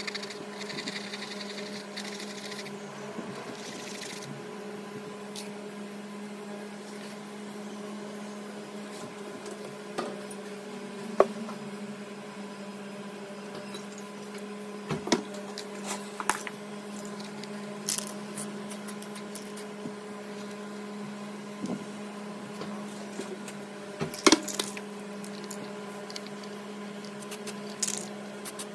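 Steady low electrical hum with scattered light clicks and taps from small parts being handled on a cardboard work surface; the sharpest knocks come about eleven, fifteen and twenty-four seconds in.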